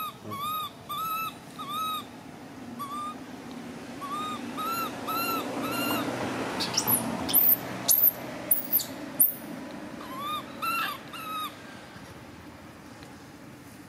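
Baby long-tailed macaque crying in runs of short, arched, high-pitched calls, about three a second, coming in several bouts. Several very shrill, falling squeals sound around the middle.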